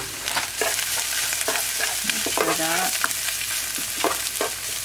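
Cauliflower rice sizzling in hot oil in a nonstick frying pan. A spatula stirs and scrapes through it in repeated short strokes while the last of its water cooks off.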